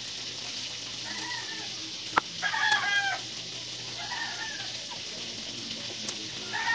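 Chickens calling four times in short calls that fall in pitch, the loudest about two and a half seconds in. There is a single sharp tap just before it, and a faint steady hum underneath.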